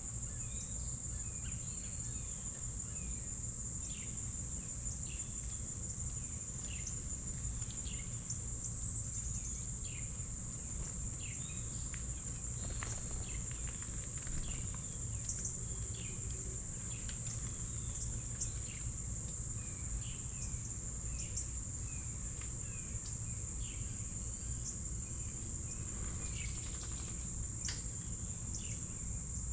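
Steady high-pitched insect trill, like crickets, running throughout, with many short bird chirps scattered over it and a low steady rumble underneath.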